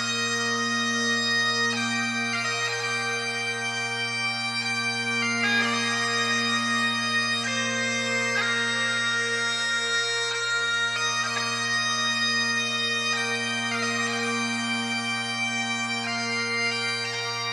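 Bagpipes playing a slow melody over steady drones, each chanter note held for a second or more before the next.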